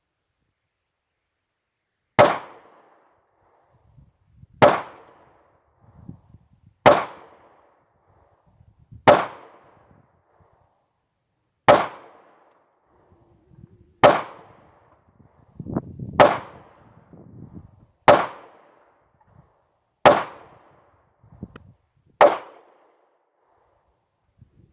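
Ruger SR9C compact 9mm pistol firing ten shots in slow, deliberate fire, about two seconds apart.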